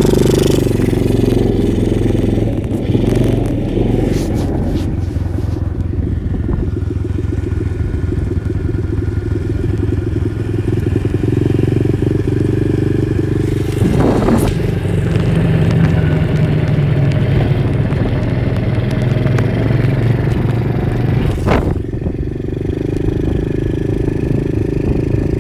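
Apollo dirt bike's small single-cylinder engine running while being ridden, its pitch rising and falling a little with the throttle, with two brief knocks, about midway and near the end.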